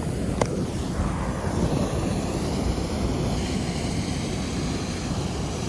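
Steady rush of river water pouring over the falls, with a short click about half a second in.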